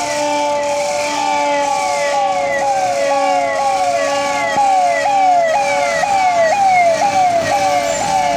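Fire truck's electronic siren sounding: a quick falling sweep in pitch, repeated about twice a second over a steady tone. It grows louder over the second half as the truck comes up close.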